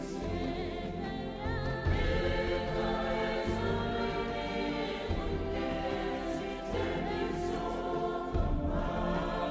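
Background music: a choir singing held chords over a low bass line.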